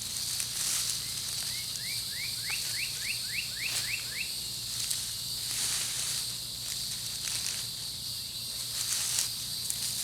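A steady high drone of summer insects, with a bird singing a quick run of about ten rising chirps between about one and four seconds in. Short rustles of hay mulch being pulled back and dug through come and go.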